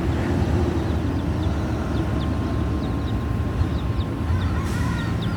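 Baby chicks peeping: repeated short, high, falling chirps over a steady low rumble.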